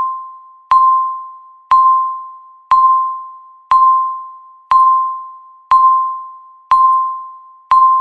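Countdown timer beep: a single electronic tone struck once every second, each one starting sharply and fading away before the next, marking the seconds ticking down.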